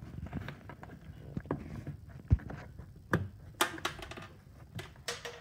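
Hands working loose the plastic interior corner trim panel behind an Isuzu D-Max door mirror: scattered light clicks and knocks of hard plastic.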